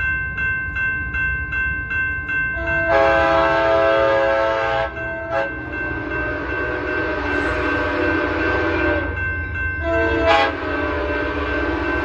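Passenger train horn blowing in several long blasts as the train approaches, over a rapid ringing that pulses about three to four times a second.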